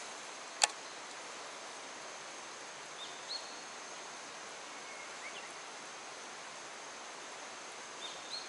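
Steady rush of a fast stream current, with a thin steady high insect tone over it. A single sharp click comes about half a second in, and a few short high bird chirps come and go later.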